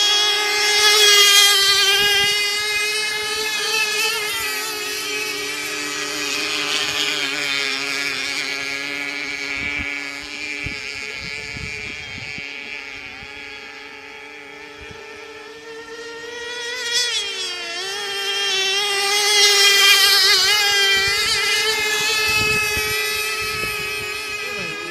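High-pitched whine of O.S. 3.5cc glow-fuel outboard engines driving RC tunnel-hull racing boats at speed. Two engines are heard at first, then one from about halfway. The sound swells loudest about a second in and again around 20 s as the boats pass close, and fades in between.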